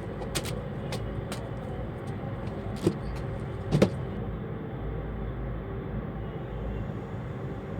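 Plastic fridge containers and zip pouches being handled and set into a fridge: a series of sharp clicks and knocks, the loudest two about three and four seconds in, over a steady low hum.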